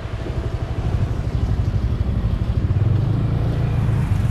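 A vehicle's engine running with road noise while driving, growing a little louder about three seconds in.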